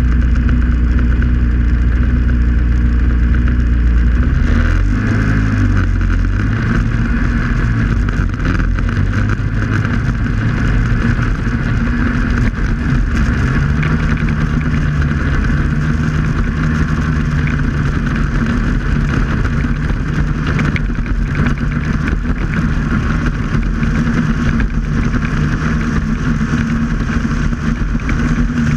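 Snowmobile engine running steadily while the sled travels across the snow, its engine note shifting about four seconds in and again around thirteen seconds in.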